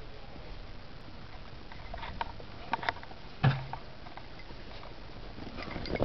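Steps crunching in snow: a few scattered crunches from about two seconds in, with one sharp thump about halfway through.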